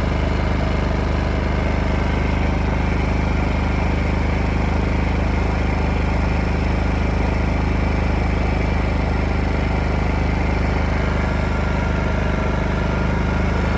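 Wen 56235i inverter generator's four-stroke engine running steadily at reduced eco-mode speed, throttled back automatically to suit a light load.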